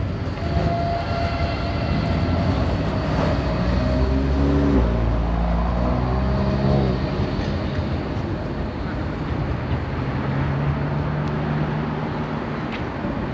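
Electric tram going by, a steady low rumble with motor tones that shift up and down in steps for a few seconds, then settle into a steady hum.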